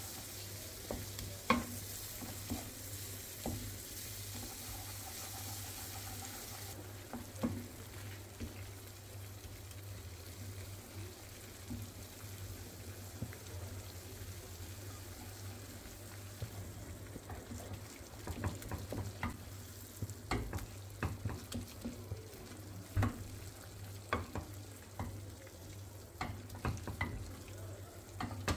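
Wooden spoon stirring and scraping thick kuymak (cornmeal, butter and melting string cheese) around a nonstick frying pan, with a low sizzle from the pan. This is the stage where the cheese is being stirred in until it melts. The spoon's knocks and scrapes come more often in the second half, over a steady low hum.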